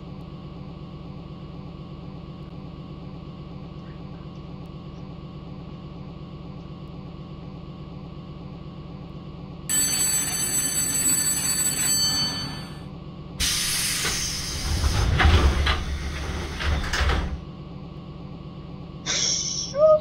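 Metro train standing with a steady low hum; about ten seconds in, the door-closing warning tone sounds for a few seconds, then the doors slide shut with a rush of noise and low thuds. A short rising tone comes near the end.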